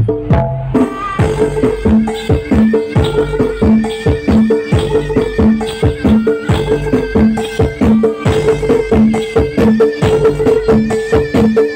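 Live traditional Javanese percussion music accompanying a bantengan bull dance: rapid drum and metal-percussion strikes over a low note that repeats about once a second, with a higher note held throughout.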